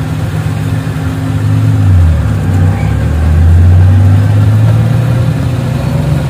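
Engine of a vehicle heard from inside its cab while driving: a steady low hum whose pitch drops about two seconds in, then climbs gradually.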